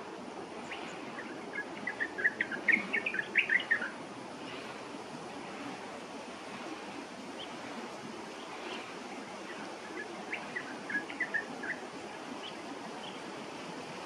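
A bird calling in two bursts of quick chirping notes, about two seconds in and again about ten seconds in, over steady background noise.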